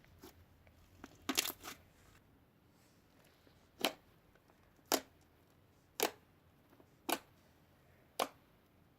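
Slime being pressed and pulled by hand: a quick cluster of crackles about a second in, then five sharp pops about a second apart.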